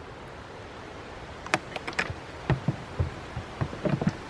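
Goat hooves clicking and thumping on hollow plastic tubs and a wooden bench as the goats climb about: a run of sharp clicks and dull knocks starting about a second and a half in, irregularly spaced.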